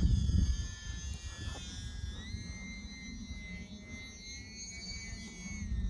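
E-flite UMX Turbo Timber's small brushless electric motor and propeller whining in flight, the pitch rising a little about two seconds in and dropping near the end. Wind rumbles on the microphone underneath.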